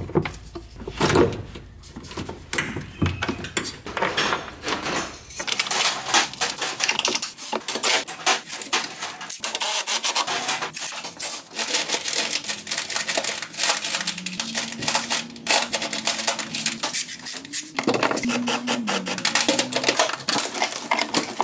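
Continuous rapid metallic clicking and clattering of hand tools and parts being handled in a truck's engine bay.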